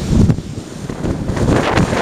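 Typhoon wind buffeting the microphone, over high waves breaking against a harbour quay and reef. About a second and a half in, a dense rush of water noise builds and grows louder.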